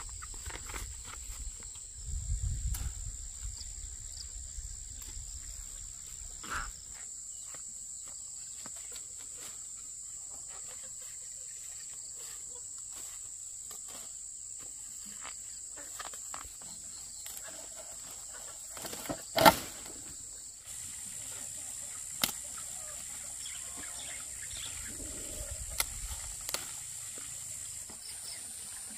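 Insects keep up a steady, high, continuous drone, with scattered light footsteps and rustling in grass and leaves. A brief low rumble comes a couple of seconds in, and a single sharp knock, the loudest sound, about two-thirds of the way through.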